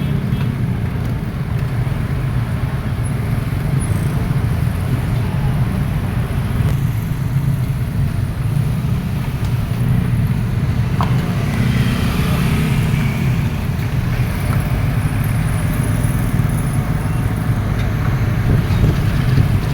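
Excavator's diesel engine running steadily with a low rumble while it works.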